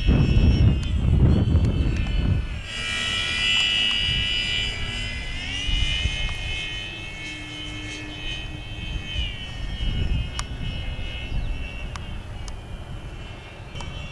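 Electric RC airplane in flight: the high whine of a 1050 kV brushless outrunner motor and 11x4.7 propeller, its pitch stepping up and down several times as the throttle and distance change. Wind rumbles on the microphone for the first couple of seconds.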